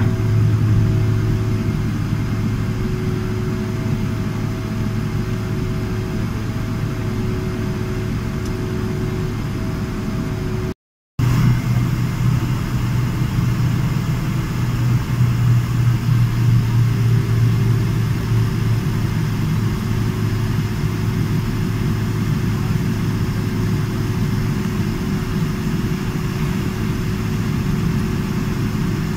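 Jet airliner cabin noise while taxiing: the turbofan engines running at low power, a steady low hum with a few steady tones over it. The sound cuts out for a moment about eleven seconds in.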